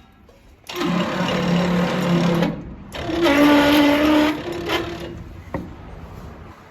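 Hitachi Koki PU150FA woodworking machine's electric motor running in two short bursts with a steady hum: about two seconds, then after a brief pause about a second more. Each stops sharply.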